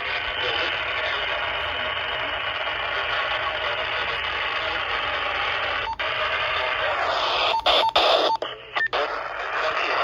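Motorola handheld two-way radio's small speaker playing a received broadcast, a voice through steady hiss and static. Near the end the sound breaks up a few times, with short button beeps as the channel is changed.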